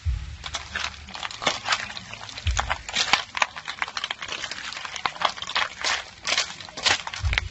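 Snail shells rattling and clicking against each other and the metal wok as they are stir-fried, a quick irregular clatter of sharp knocks.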